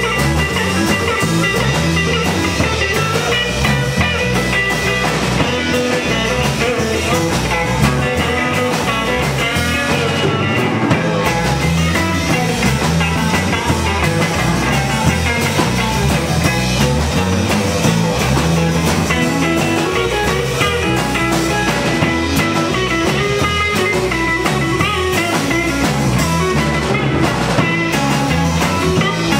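Live rock band playing: electric guitar, electric bass and a drum kit, with guitar notes that bend in pitch now and then.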